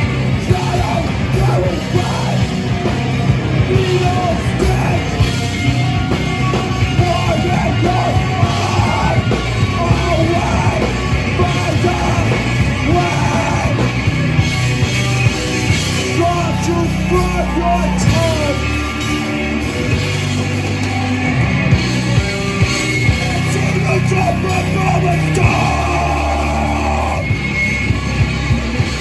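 Rock band playing live: electric guitar, drum kit and shouted vocals, loud and dense throughout.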